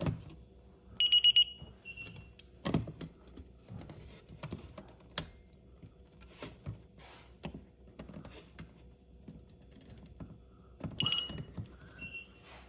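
ADT alarm panel beeping: a quick run of high-pitched beeps about a second in, followed by a single shorter beep, then the same pattern again near the end. Between the beeps come scattered plastic clicks and knocks as the panel's housing and battery compartment are handled.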